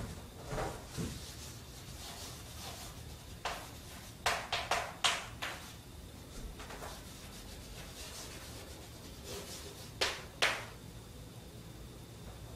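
Chalk writing on a blackboard: short scratching strokes and taps in irregular clusters, with a quick run of strokes around four to five seconds in and two sharper strokes near ten seconds, over faint room hiss.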